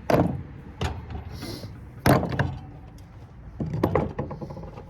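Heavy parts of a large power-supply unit being handled and shifted: a series of sharp knocks and clunks, the loudest about two seconds in, with a cluster of smaller ones near the end.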